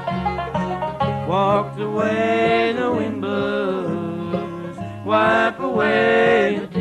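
Bluegrass band playing an instrumental passage: banjo, guitar, mandolin and upright bass picking together, with a steady bass line. Twice, long held notes slide up into pitch.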